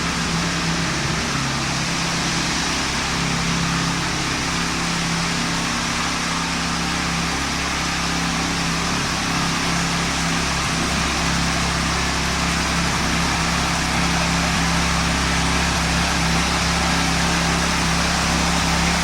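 Heavy diesel engine of concrete-pouring equipment running steadily: a constant low hum with an even rushing noise over it.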